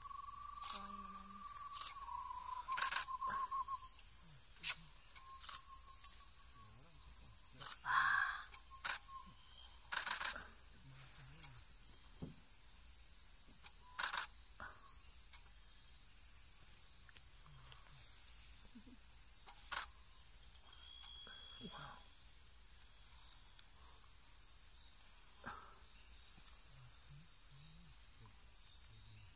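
Amazon rainforest insect chorus, a steady high buzzing, with a few sharp clicks scattered through it and a drawn-out wavering call in the first few seconds.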